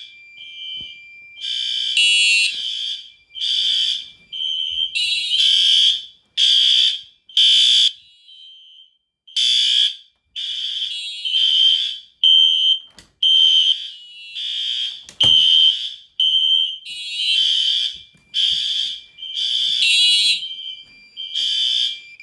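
Fire alarm system in alarm, set off by a magnet test of a System Sensor 2151 smoke detector: several electronic fire alarm horns sounding together out of step, shrill blasts about a second apart, some short and some long.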